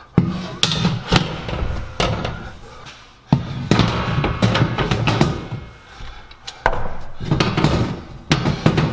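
Perforated metal wall panels knocking and clanking against steel mounting rails as they are lifted and hooked into place, a string of sharp irregular knocks. Background music runs underneath.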